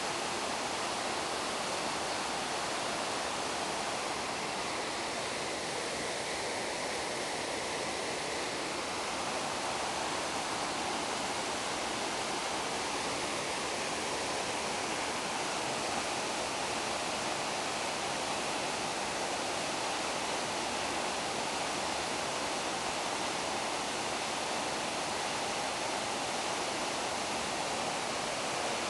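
Waterfall splashing down a rock face into a pool: a steady, even rush of falling water.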